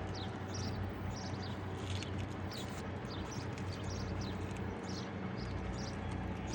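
A steady low engine hum, with birds chirping throughout in short, falling chirps several times a second.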